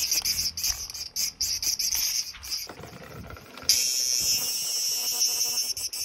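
Large brown cicadas (abura-zemi) calling in numbers: a high buzz broken into choppy bursts at first, then a louder, continuous buzz that sets in just under four seconds in.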